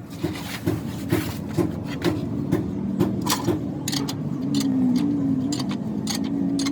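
A workshop machine motor running with a steady hum that dips slightly in pitch partway through, as if under load, with irregular sharp metallic clicks and knocks over it.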